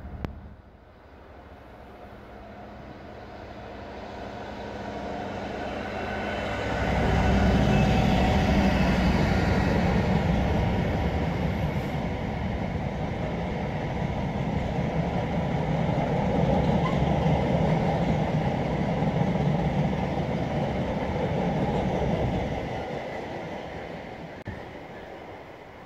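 Freight train passing at speed: its sound builds as it approaches, grows sharply louder with a deep low rumble about seven seconds in, then holds as a long rake of bulk powder tank wagons rolls by, and fades away after the last wagons pass near the end.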